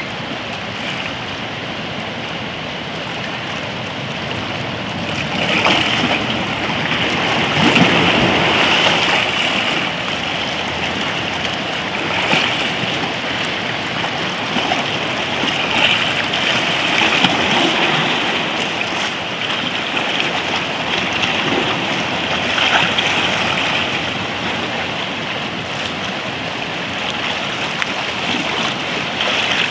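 Small sea waves washing and splashing around rocks in shallow water: a steady rush that swells louder every few seconds.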